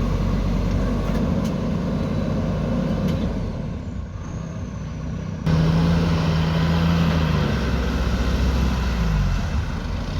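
Diesel engine of a JCB backhoe loader working. About halfway through it suddenly gets louder, holding a steady high note that drops back about two seconds later and picks up again near the end.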